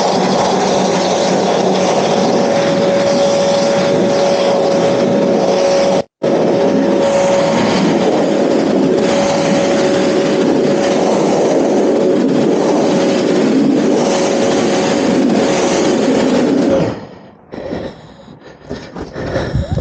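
Pressure washer running with a steady motor whine while its rotary turbo nozzle blasts water onto a wooden deck. A brief cut-out about six seconds in, and the running stops near the end.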